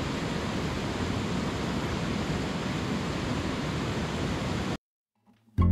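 Steady rushing noise of the outdoor night ambience, cutting off abruptly near the end. After a brief silence, acoustic guitar music begins.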